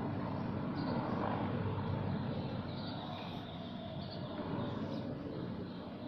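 A steady low background rumble, with a few faint pencil strokes scratching on drawing paper.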